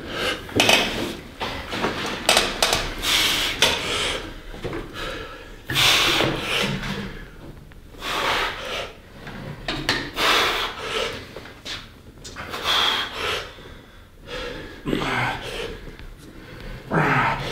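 Hard breathing under heavy load: sharp exhalations every one to two seconds from a lifter straining through a set of incline presses with 60 kg dumbbells, with a couple of short grunts near the end.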